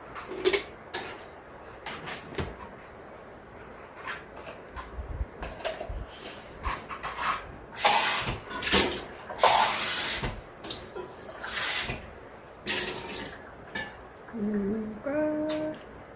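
Water running into a painting water container in several short spurts, among small clicks and knocks of handling.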